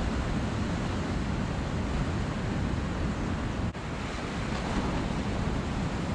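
Wind buffeting the microphone over the steady wash of ocean surf, with a brief drop in level a little over three and a half seconds in.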